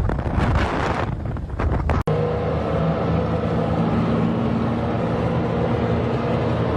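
Wind buffeting the microphone, then an abrupt cut about two seconds in to a steady vehicle engine hum with several held tones.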